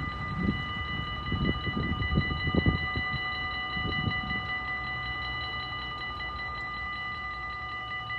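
Dutch level-crossing warning bell ringing steadily on several pitches while the rumble of the passing train dies away about four seconds in.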